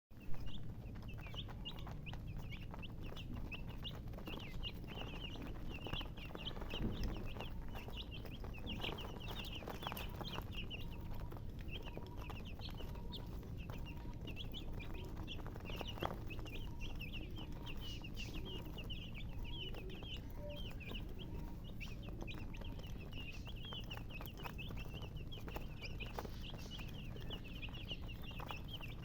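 A brood of baby chicks peeping continuously: many short, high chirps overlapping, several a second, over a low steady rumble.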